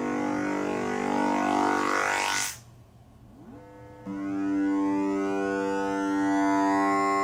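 Synthesised oscilloscope-music signal: sustained, buzzy electronic tones in chord-like stacks. About two and a half seconds in, a rising sweep glides up to a very high pitch and cuts out into a short lull. A new steady chord comes in around four seconds.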